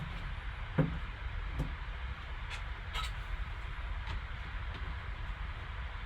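Scattered light taps and clicks from hands opening a graded card box and handling the card inside, over a steady low hum.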